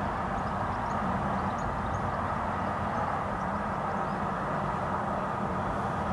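Steady hum of road traffic passing, with a few faint bird chirps in the first few seconds.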